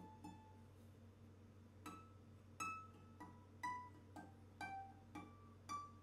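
aNueNue Green Bird UT110 tenor ukulele played fingerstyle, single plucked notes ringing out one at a time. Two notes start it, then a pause of about a second and a half, then a run of about eight notes at changing pitches.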